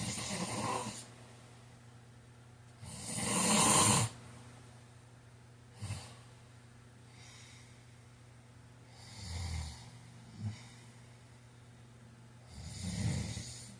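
A man snoring in his sleep, one rasping snore every three to four seconds, the loudest about three seconds in and cut off abruptly. There are short snorts between the snores. A low steady hum runs underneath.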